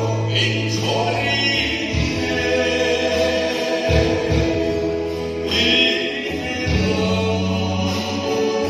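Small group of men singing a Mizo gospel song in harmony into microphones, over a band accompaniment with long held bass notes that change every couple of seconds, heard through the church's PA system.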